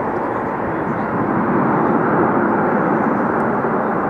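A jet airliner passing low on its landing approach, a steady engine noise that grows a little louder about two seconds in.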